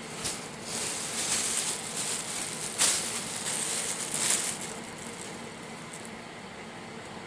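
Thin plastic shopping bag rustling and crinkling as it is handled, with a few sharper crackles, stopping about four and a half seconds in.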